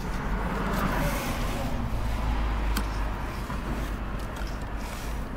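Round chainsaw file scraping across the cutters of a Husqvarna saw chain, sharpening it by hand, over a steady low rumble.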